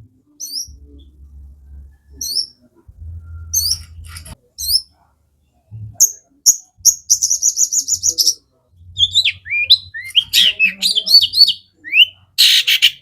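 Long-tailed shrike singing: sharp, high, falling chirps, a fast rattling trill about seven seconds in, then a run of varied gliding whistles and a loud harsh scolding rasp near the end.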